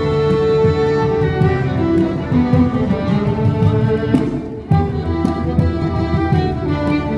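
Live Irish fiddle tune played on several fiddles with guitar accompaniment, with sharp taps from a dancer's steps running through it. The music dips briefly a little past halfway and comes straight back.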